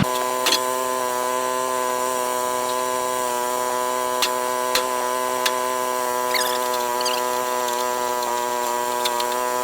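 Woodland Mills HM130 Max bandsaw sawmill running steadily with an even, humming drone, with a few sharp clicks scattered through it.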